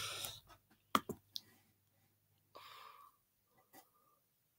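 Three short sharp clicks about a second in, followed by two faint breaths close to the microphone.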